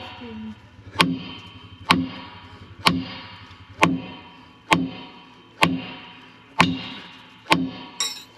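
Hammer striking steel about once a second, nine sharp blows, each ringing briefly. This is the work of driving out a broken tie rod end from the combine's steering.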